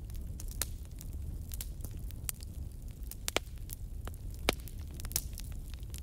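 Crackling wood fire: irregular snaps and pops over a steady low rumble, with two louder pops about three and four and a half seconds in.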